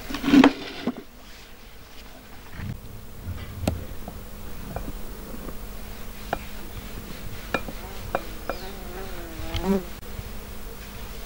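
A flying insect buzzing past close by: a short loud buzz just after the start, and a wavering hum for about a second and a half near the end. Scattered light taps in between.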